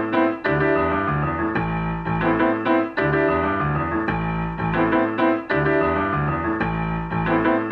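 Background music: a piano-led instrumental playing a repeating phrase of notes.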